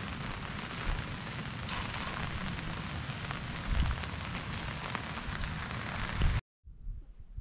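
Steady rain falling on meadow grass and plants, an even hiss with a few low bumps. It cuts off suddenly near the end, leaving a quieter low rumble.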